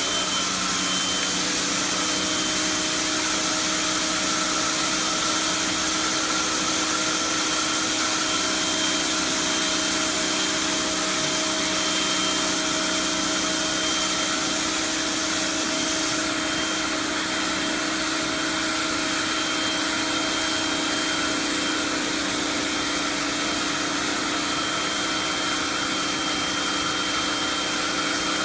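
Realm BY01-HBE 1500 PSI 11 A electric pressure washer running steadily under load: a constant motor-and-pump hum with a high whine, over the hiss of the water jet striking a hard floor.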